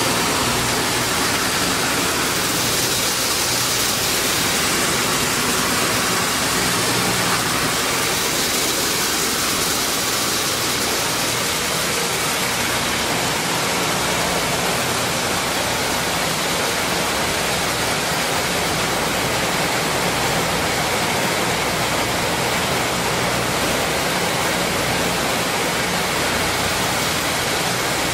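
Maize grits milling machine running steadily while it grinds corn: an even, continuous noise with a faint low motor hum underneath.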